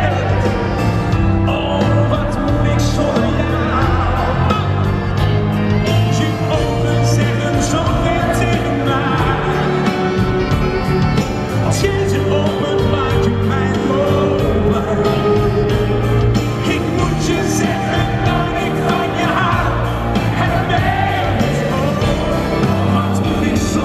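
A male singer singing a Dutch song live with a full band behind him, a steady beat and bass, heard loud from among the arena audience.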